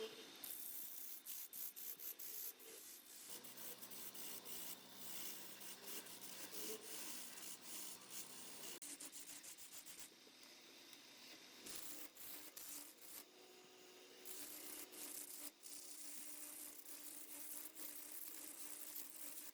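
A tool rubbing against wood turning on a lathe: a steady scratchy noise peppered with small clicks, over the low hum of the lathe motor.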